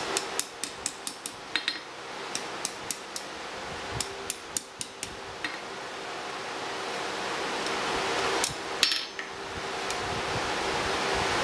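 Hand hammer striking a red-hot metal ring held in tongs on an anvil: a quick run of about a dozen light metal-on-metal taps, then a shorter run of about five about four seconds in. A single louder metal clank comes about eight and a half seconds in, over a steady rushing hiss.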